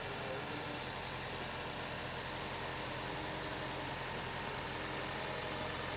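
2009 Toyota Prius's 1.5-litre four-cylinder petrol engine idling steadily on fresh oil, run to check for leaks underneath.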